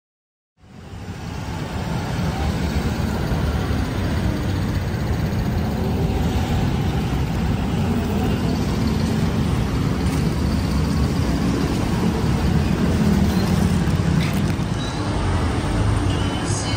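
Steady city street ambience, mainly the low rumble of road traffic, fading in after a brief silence.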